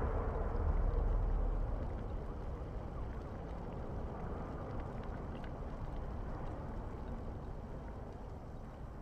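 A low rushing rumble that slowly fades away.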